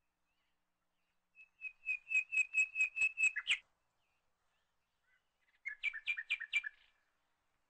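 A bird chirping in two quick runs: about ten even, high chirps, then after a short gap about six lower chirps.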